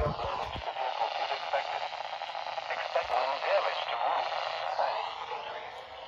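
A radio playing a faint broadcast voice through its small speaker, thin and heavily mixed with static hiss. A low thump comes right at the start.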